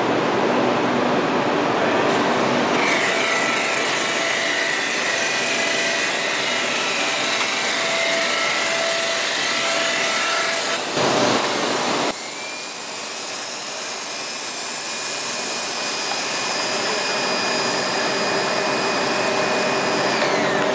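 Profile wrapping machine running: a steady mechanical drone of its electric gear motors and feed rollers with several high whining tones. A brief louder rush comes about eleven seconds in, and near the end the high whine sinks in pitch.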